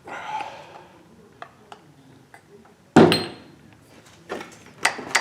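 Metal parts of a disassembled air impact wrench knocking on a workbench. There is a brief rush of noise at the start and one loud clank about three seconds in that rings briefly, then several lighter clinks near the end.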